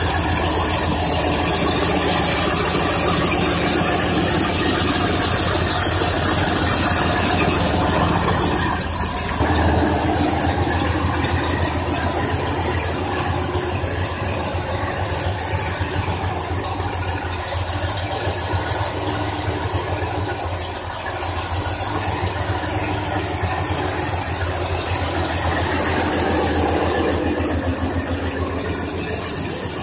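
A 1990 Ford F-150 pickup's engine idling steadily; its deepest rumble drops away about ten seconds in. The owner says the recorded sound comes out odd because of echoes off an open garage.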